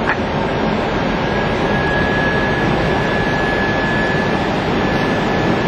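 Steady cockpit noise of an Airbus A320 on final approach, air and engine sound at an even level. A faint steady high tone joins about a second and a half in.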